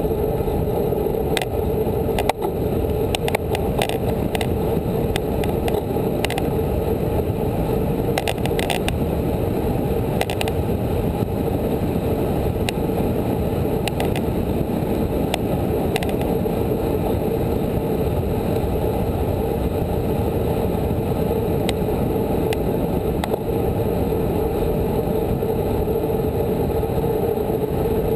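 Steady wind rush and road rumble on a camera mounted to a road bike's handlebars while riding at speed, with scattered faint ticks.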